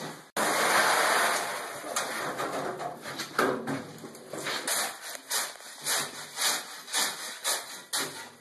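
Footsteps of work boots on a gritty concrete basement floor, about two steps a second, after a second or two of louder, even noise near the start.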